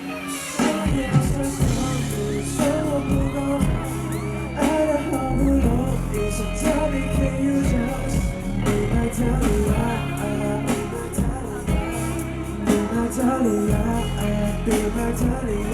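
Loud live pop music from a stage sound system, with a steady drum beat and a singing voice.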